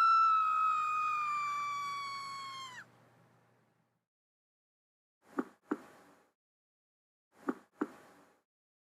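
A loud, sustained high tone that falls slightly in pitch and cuts off suddenly after about three seconds. After a pause come two double thumps, lub-dub, like a heartbeat.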